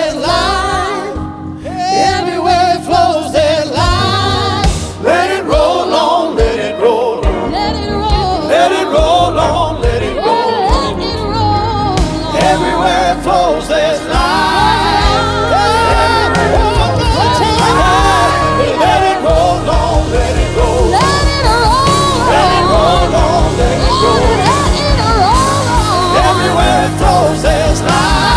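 Live worship band with drums and bass playing on, with singers holding long wavering, ornamented lines over it that grow fuller about halfway through.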